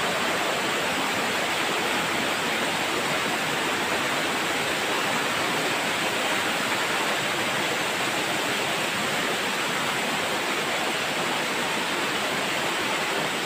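Waterfall pouring over rocks close by: a steady, unbroken rush of splashing water.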